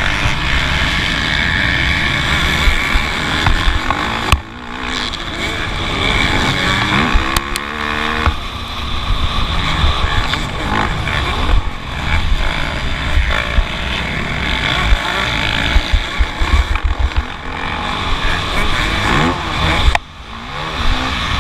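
Motocross bike engine at race pace, heard from an onboard camera, revving up and down as the rider works the throttle. The revs climb audibly about seven seconds in, and the sound drops off sharply twice, once a few seconds in and once near the end.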